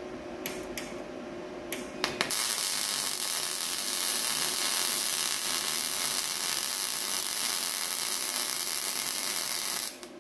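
A few light clicks over a low hum, then about two seconds in a YesWelder DP200 MIG welder strikes an arc and runs a continuous steady hiss for about eight seconds, stitch-welding .035 wire on 75/25 mixed gas into a sheet-steel car body panel. The hiss cuts off suddenly near the end.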